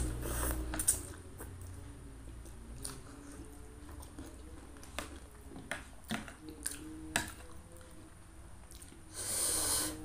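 Wet slurping of instant noodles in broth that dies away about a second in, then soft chewing with a few sharp clicks of a stainless spoon and fork against a ceramic plate. About a second of louder noise comes near the end.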